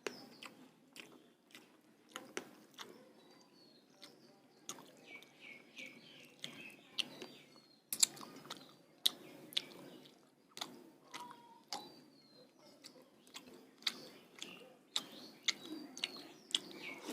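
A person chewing food with many wet mouth clicks and smacks. Small birds chirp in the background a few times, around five seconds in and again near the end.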